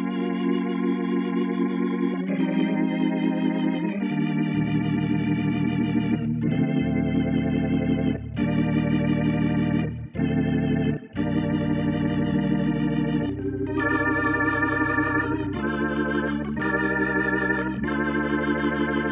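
Native Instruments Vintage Organs (Scarbee) 'Theater Organ' preset playing held chords with a wavering vibrato, the chord changing every one to two seconds with short breaks between some of them.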